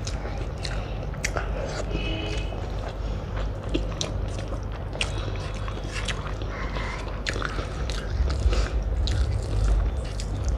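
Close-miked eating sounds: chewing and many small wet mouth clicks from someone eating rice and omelette curry by hand.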